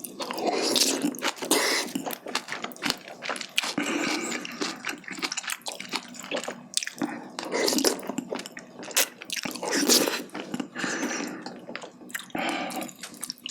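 Close-miked wet chewing and mouth sounds of someone eating spicy jjimdak, Korean braised chicken with glass noodles, with many small irregular clicks.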